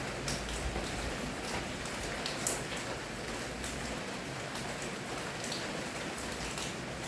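Steady rain falling, with individual drops landing as scattered sharp taps every second or so over the constant hiss.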